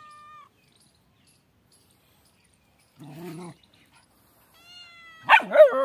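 Tabby cat meowing and yowling: a thin, drawn-out meow at the start, a short lower call about three seconds in, then a higher meow that breaks into a loud, harsh yowl near the end.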